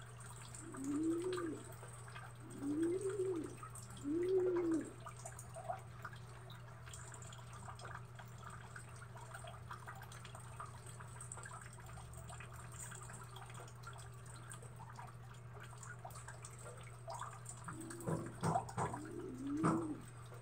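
Rain falling and dripping onto a concrete yard, a steady patter with many small drips. Over it come short rising-and-falling animal calls, about a second each: four in the first five seconds, then a few more near the end.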